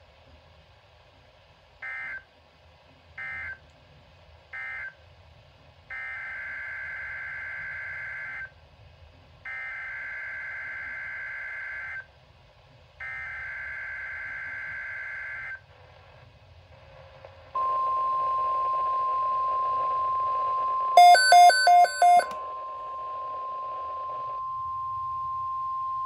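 NOAA Weather Radio EAS tones from a weather alert radio's speaker. First come three short end-of-message data bursts, then after a pause three longer warbling SAME header bursts announcing the next alert. These are followed by the steady 1050 Hz warning alert tone of about nine seconds, with four quick, loud beeps cutting in about four seconds into the tone.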